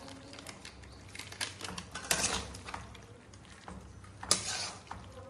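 Irregular clinks and knocks of utensils and dishes being handled, a few sharp strikes standing out, the loudest about two seconds in and just after four seconds.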